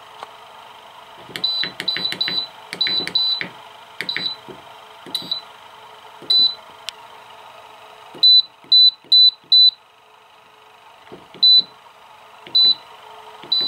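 Electrolux Air Gate 2 heater control panel beeping once for each button press as the set temperature is stepped up and down: short high beeps, some in quick runs of two to four, with soft clicks of the buttons. The repaired control board is responding to the presses.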